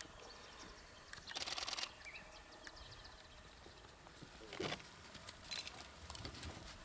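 Quiet bush background with faint bird chirps and ticks, broken by a short rattling burst about a second and a half in and a brief sharp knock or rustle a little after the middle.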